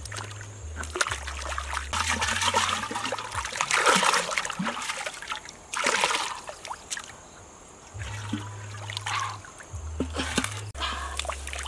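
River water sloshing and splashing as a clay pot is dipped into the shallows and emptied back out, in several separate pours, the longest in the first half and a short loud one about six seconds in.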